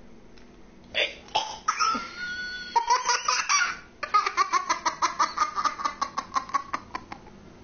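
A toddler laughing: a few short squeals and cries at first, then, from about four seconds in, a long run of quick, high-pitched laughs at about six a second.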